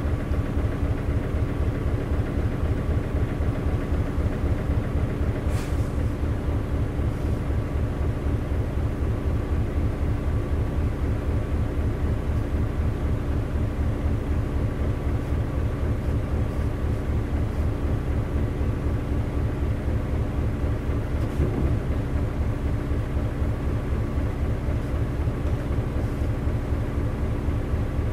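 Isuzu 8PE1 V8 diesel engine of a KC-LV380L city bus, heard from inside the bus and running steadily with an even low pulsing and an unchanging pitch.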